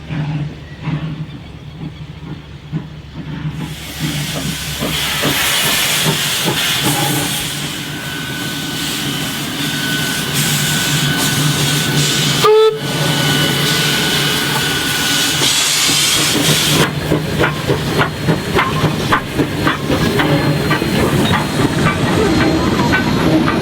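Steam locomotive working, with a loud, steady hiss of steam and a brief break about halfway. From about two-thirds of the way through comes a quick, even rhythmic beat.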